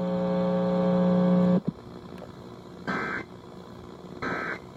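A steady low buzzing tone for about a second and a half. After a short gap come two brief bursts of Emergency Alert System digital data tones, a little over a second apart: the End of Message (EOM) signal that closes an EAS alert.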